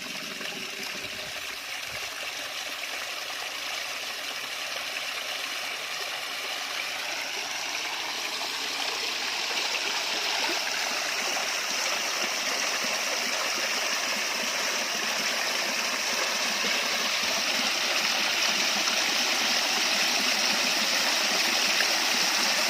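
Water running down a man-made garden waterfall and splashing into its basin: a steady rushing that grows gradually louder as the flow builds.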